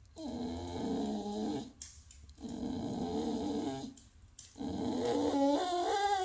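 Bulldog making three long, drawn-out grumbling vocal sounds in a row, 'talking back' to its owner; the last one rises in pitch near the end.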